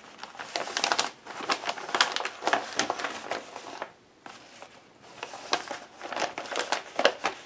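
Paper bag sewn from magazine pages crinkling and rustling as it is handled and opened out, in two bouts with a short lull about halfway through.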